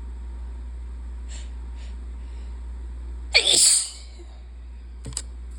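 A person sneezes once, loudly and abruptly, a little past halfway through, after a couple of quick faint breaths. It is an allergy sneeze set off by pollen.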